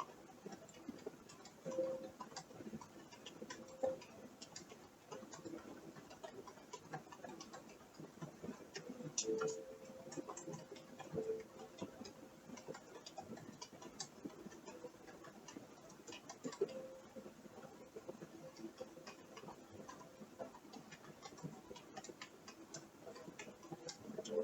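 Faint, irregular creaking and clicking: scattered small ticks with short squeaky creaks every second or two, a few drawn out for about a second.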